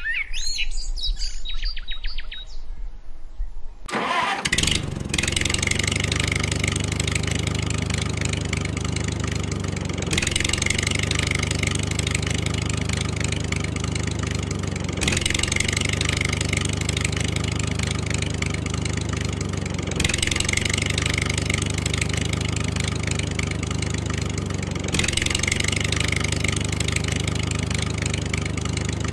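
Birds chirping for the first few seconds, then a tractor engine sound effect starts about four seconds in and runs steadily, the same engine sample looping about every five seconds.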